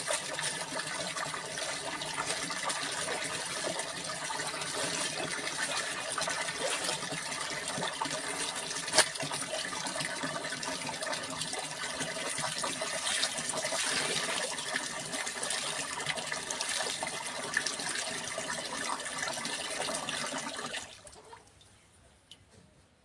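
Water splashing and sloshing as clothes are washed by hand in a plastic tub, with water pouring and dripping back as the cloth is lifted and wrung. A sharp click about nine seconds in; the water sounds stop about 21 seconds in.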